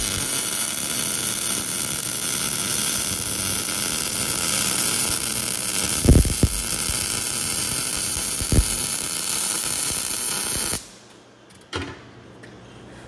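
A handheld power tool runs with a steady, high-pitched sound for about eleven seconds, with two knocks partway through, then cuts off suddenly. It is heard during work on a truck's exhaust.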